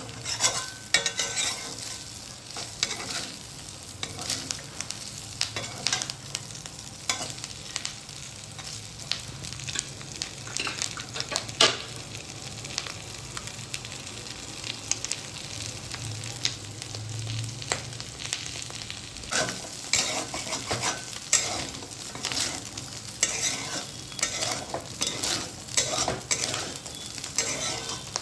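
Chicken pieces frying in a little oil in a pan, sizzling and crackling, while a spatula stirs and scrapes against the pan; one sharper scrape a little before halfway is the loudest.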